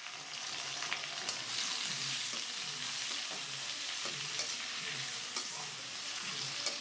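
Chopped onions, tomatoes and green chillies sizzling in oil in a stainless steel kadai as a spatula stirs them, with a few sharp clicks of the spatula against the pan.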